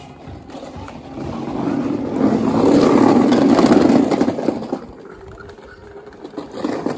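Hard plastic wheels of a children's ride-on toy rolling over brick pavers close by: a rough, rattling rumble that swells about two seconds in and fades after about four seconds.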